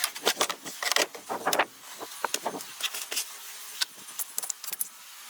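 A rapid, irregular series of sharp clicks and clinks, some with a brief ring, from hands-on work on the vehicle.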